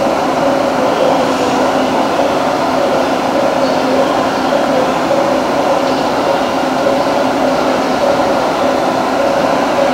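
Steady hum and rumble of electric trains at a railway station, with two steady droning tones and no build-up.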